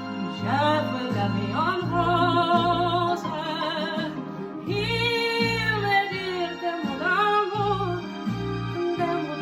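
A female singer holding long notes with vibrato over a backing accompaniment with a pulsing bass line.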